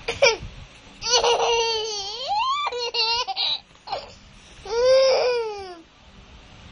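Young child laughing and squealing in a high voice: a long run of laughter starting about a second in, then a shorter squeal that rises and falls around five seconds in.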